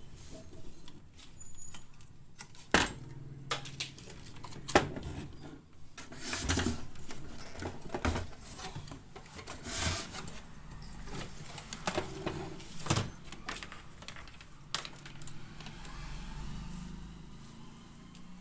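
Irregular clicks, taps and clatter of tools and parts being handled on a workbench, with a few sharper knocks.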